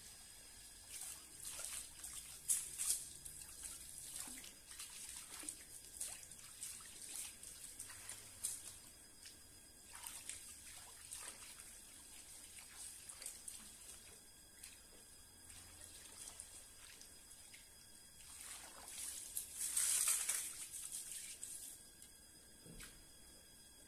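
Water trickling and sloshing, with scattered small knocks and clicks, and a louder rush of water for about two seconds near the end.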